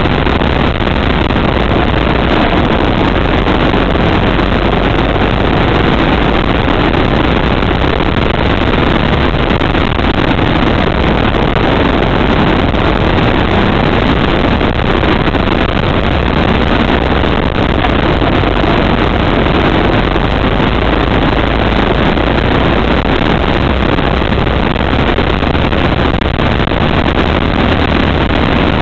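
Go-kart engine running hard as the kart laps the track, heard from a camera mounted on the kart itself: a loud, steady engine noise without a break.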